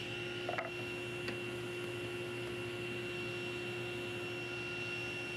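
Steady electrical hum of shop equipment, with a short wooden knock about half a second in and a faint click a moment later as a board is handled at the table saw.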